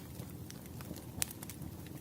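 Fireplace crackling: scattered small pops over a low steady rumble, with one sharper pop a little past the middle.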